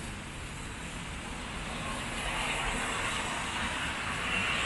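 City street ambience in the rain: a steady hiss with a low rumble of traffic, and a faint high whine near the end.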